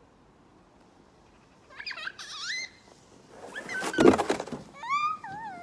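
A young child squealing in high, gliding cries while riding a snow tube down a snow mound, with a loud brief rush of noise about four seconds in as the tube slides to the bottom.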